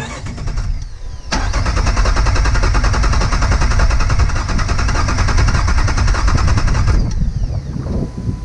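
Jeep Wrangler TJ's starter cranking the engine with starting fluid in the intake. The cranking starts with a click about a second in, runs steadily for about six seconds, then stops without the engine catching. It is a no-start condition that the owner puts down to a lack of fuel, with no fuel pump heard powering up.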